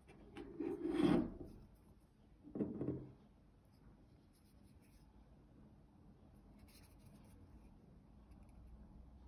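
A gravity knife being handled: two brief rubbing sounds, the longer about a second in and a shorter one near three seconds, then only faint small ticks.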